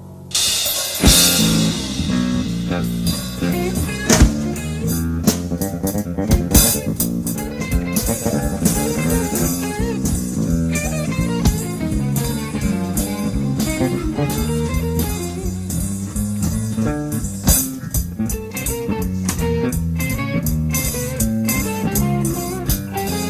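Electric bass and drum kit playing a jazz-fusion band jam. The full band comes in loud just after the start, with a cymbal crash, out of a soft keyboard passage.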